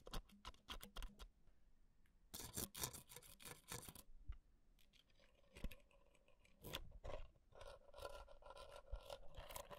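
A thin metal ear pick scratching and tapping against a small microphone's metal cage, heard close-up: quick clicks, then bursts of rasping scratches. Near the end there is a longer scrape with a faint metallic ring.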